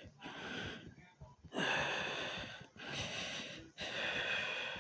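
A person breathing hard and heavily: four long, noisy breaths in a row with short pauses between them. Faint low thumps of a fast heartbeat sound underneath.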